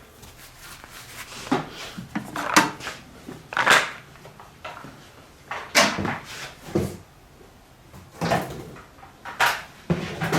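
Desktop computer hard drives being cleared off a small scale and set down one after another: a series of about eight irregular hard clunks with handling noise between.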